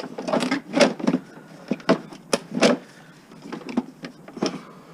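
Irregular clicks, knocks and short scrapes of hand tools working on a lawn mower's metal and plastic parts, about a dozen sharp strokes with small gaps between.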